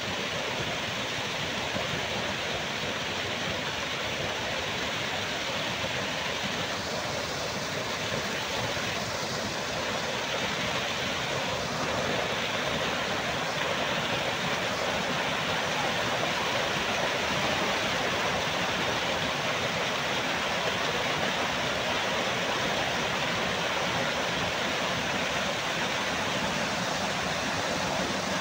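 Small waterfall: a sheet of water pouring onto rock and churning into foam close by, a steady, even rushing and splashing.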